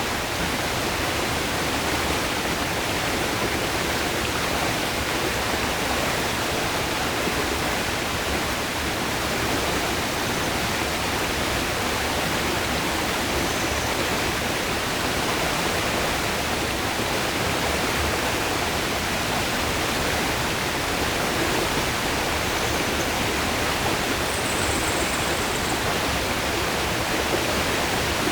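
The Langevin River's flowing water rushing in a steady, dense wash of sound, with a brief faint high note near the end.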